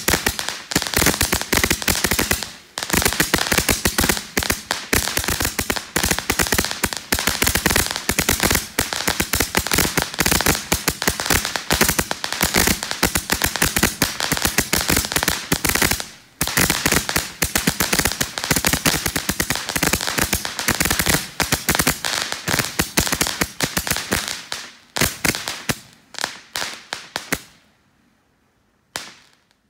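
TROPIC TG380 Gatling Maniax, a 380-shot gatling firework, firing shots in very rapid succession: a dense stream of loud pops and crackling bursts with two brief pauses. It thins out and stops shortly before the end, with one last short burst.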